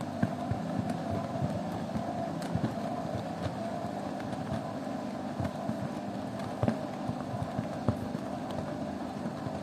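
Washing machine running a wash with foam in the drum: a steady motor hum, with irregular short knocks as the load turns.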